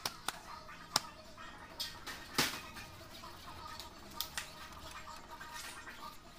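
Hand-wiping the bare glass of an LCD panel with a cloth: scattered sharp taps and knocks, the loudest about two and a half seconds in.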